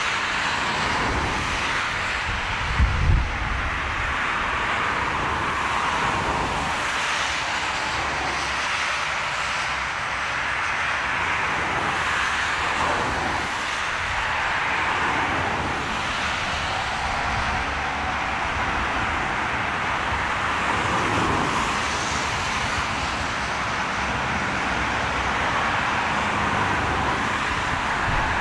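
Airbus A380 on final approach, its jet engines giving a steady rushing noise, with wind buffeting the microphone and a brief gust thump about three seconds in.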